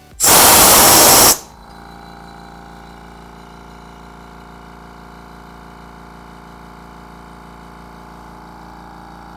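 Compressed air hisses loudly out of the open tank drain of a Hitachi EC28M one-gallon oil-free quiet air compressor and cuts off suddenly about a second in as the drain is shut. The compressor's oil-free pump then runs steadily and quietly with an even hum, refilling the tank.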